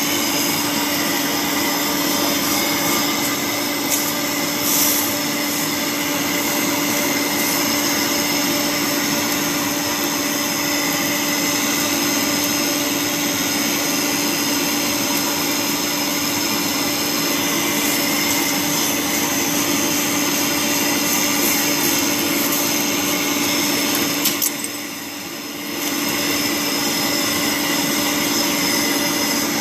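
Polygon pole welding machine running a weld: a steady hiss with a constant hum, easing off briefly about 25 seconds in.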